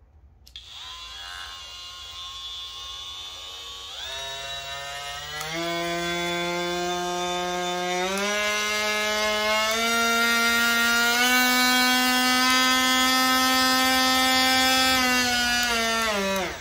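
Bauer 20V brushless cordless oscillating multi-tool running. It starts on its lowest speed setting and is stepped up through its variable-speed dial, so its whine jumps higher in pitch about five times, then winds down and stops near the end.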